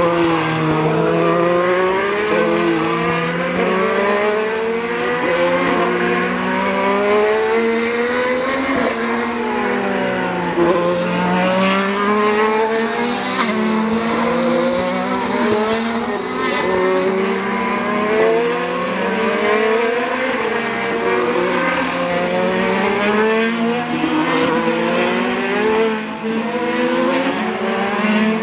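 Several IndyCar race cars' 2.2-litre twin-turbo V6 engines at speed, overlapping: the engine notes climb through the gears and drop on downshifts for the corners, again and again.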